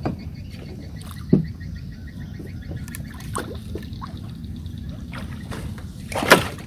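Four sharp impacts over a steady low rumble, the loudest near the end. A faint, rapid pulsing chirp runs through the first half.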